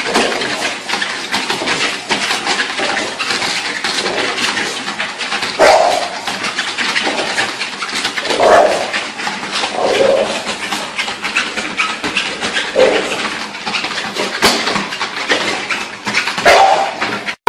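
A dog giving about five short barks, a few seconds apart, over continuous scratchy, clattering noise.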